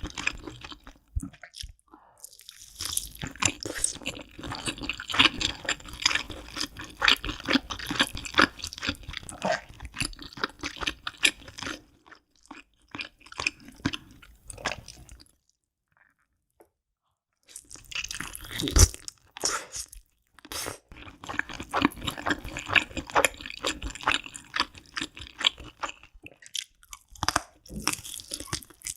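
Close-miked eating sounds: rapid chewing and biting with crisp crunches, broken by a pause of about two seconds roughly halfway through.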